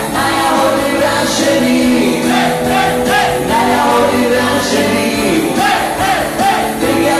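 A group of men singing loudly along with music, with held instrumental notes under the voices.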